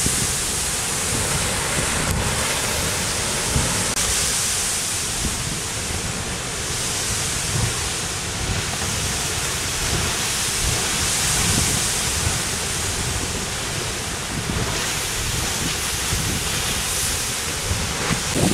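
Kilauea's lava fire hose pouring into the sea: a steady rushing hiss of steam and surf, with irregular low rumbles and small thuds from lava-steam blasts, and wind on the microphone.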